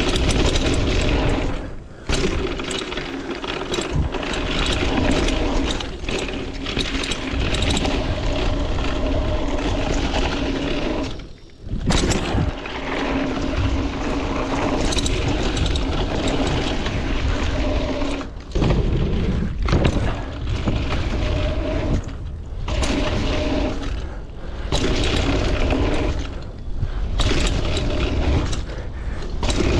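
Kona Mahuna hardtail mountain bike ridden fast down a dirt trail: wind rushing over the camera microphone, tyres rolling over the dirt and the bike rattling over bumps. A steady hum comes and goes, and the noise drops out briefly a few times.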